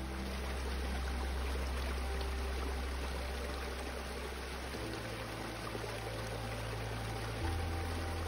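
Small snowmelt stream running and trickling over rocks beneath a fringe of icicles, with sustained low background music notes that change about five seconds in and again near the end.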